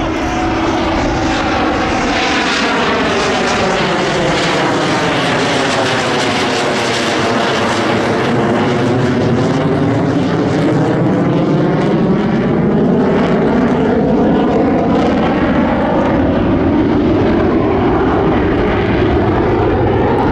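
A Chengdu J-10 fighter jet flying past: a loud, steady rushing engine noise with a hollow tone that sweeps down and then back up as the jet passes over.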